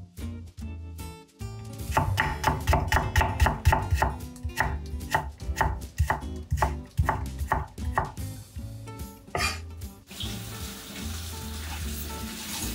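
Kitchen knife chopping carrot into thin matchsticks on a wooden cutting board, quick even knife strokes at about three a second, over quiet background music. Near the end the knife strokes stop and a steady hiss takes over.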